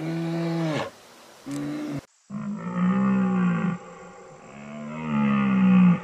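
Animal calls. First a low call held at one pitch, which falls away and ends about a second in, then a short call. After an abrupt cut about two seconds in come two longer, louder calls that rise and fall in pitch.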